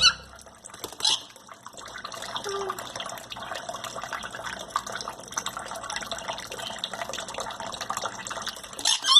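Water running and splashing, with short, high bird chirps about a second in and near the end.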